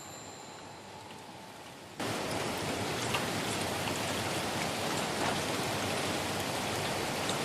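Steady rain falling, with scattered drops ticking on a surface. It comes in suddenly about two seconds in, after a quieter stretch of faint hiss.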